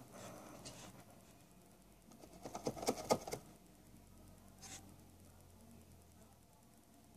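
A quick run of small, sharp clicks and taps about two and a half seconds in, with one more click near the five-second mark: a nail-polish brush and bottle being handled while painting fingernails.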